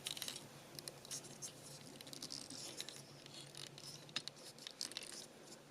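Faint scattered clicks and scrapes of a plastic action figure's parts being moved and fitted into place by hand.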